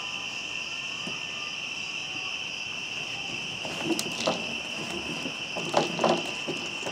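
A steady chorus of crickets chirring at night, with Shetland sheepdog puppies giving several short growls and yaps from about four seconds in as they play-fight.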